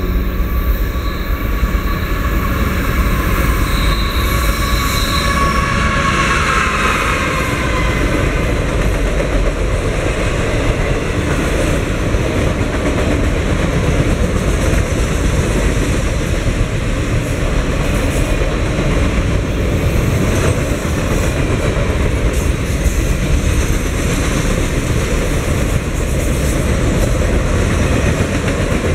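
A GE ES44AC diesel locomotive leading a RoadRailer freight train passes at speed, followed by a long string of RoadRailer trailers rolling by with a steady rumble and wheel clatter. For the first several seconds a set of high tones sounds over the rumble and drops in pitch as the locomotive goes by.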